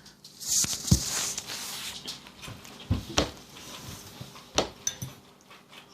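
A few scattered knocks and clicks with a short hiss about half a second in: handling sounds from the can of fruit being picked at and eaten from.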